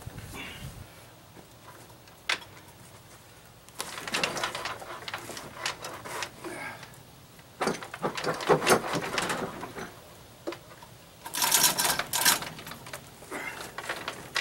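Chain hoist in use: rapid metallic clicking and chain rattle in three short bursts, with a few single clicks between them.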